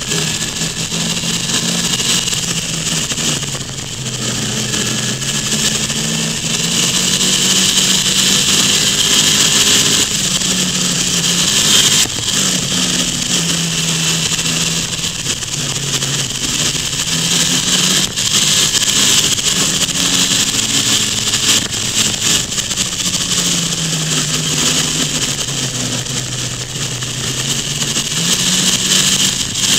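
Motorcycle engine running at changing speed, its pitch rising and falling again and again as it accelerates and eases off through a run of bends, under a steady rush of wind noise.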